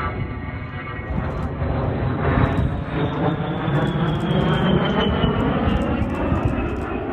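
A-10C Thunderbolt II's twin TF34 turbofan engines whining as the jet passes by, louder through the middle, the pitch of the whine falling as it goes past.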